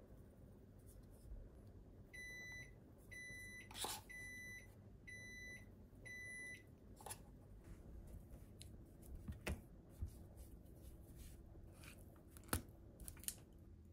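An electronic beeper sounds five times, about once a second. Then come a few light clicks and taps of wooden chopsticks against a stainless steel tray as chicken breast pieces are turned in potato starch.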